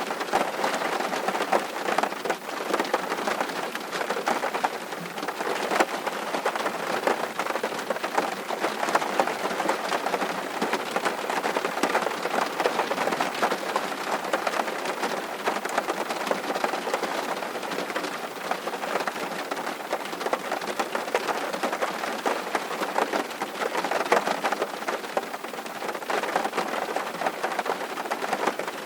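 Steady rain falling: an even hiss with many separate drops ticking through it, unchanging throughout.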